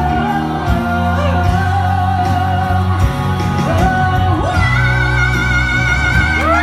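A woman singing a musical-theatre ballad live into a handheld microphone over instrumental accompaniment with a steady bass, holding long notes with vibrato. In the second half she holds one long high note.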